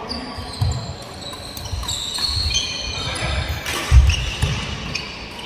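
Badminton players' court shoes squeaking and thudding on a wooden indoor court during a rally, with a loud thud about four seconds in.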